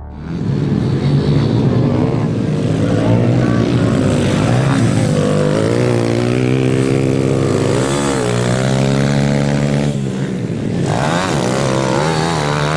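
Small 110cc four-stroke mini dirt bike engines revving on a motocross track, pitch climbing and dropping again and again as the riders shift and back off. The sound breaks and changes about ten seconds in, then a bike revs up again.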